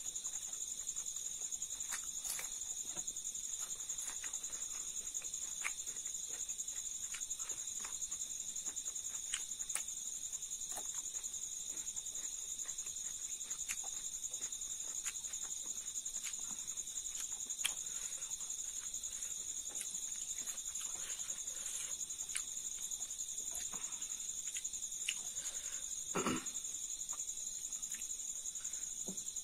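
Insects chirring steadily at a high pitch, with scattered faint clicks and smacks from eating rice by hand, and one brief louder splashy rustle a few seconds before the end.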